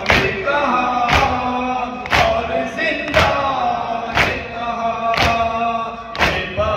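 Congregation of men doing matam, striking their chests in unison about once a second, while a noha is chanted in Urdu by male voices between the beats.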